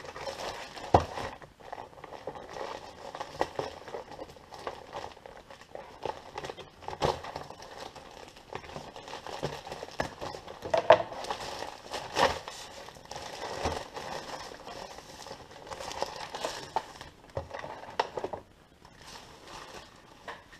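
Plastic courier mailer bag crinkling and rustling as it is cut open with scissors and handled, on and off, with a few sharp louder crackles.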